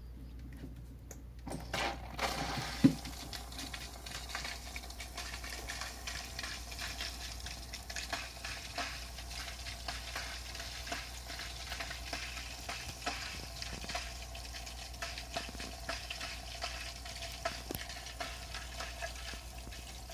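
Kotobuki Profit Filter Big hang-on-back aquarium filter running with air leaking in at its flow-adjust knob, so the impeller keeps sucking air: a continuous crackling, sputtering rattle of churned bubbles over a low hum. The crackling starts about two seconds in, with a single sharp knock just after it.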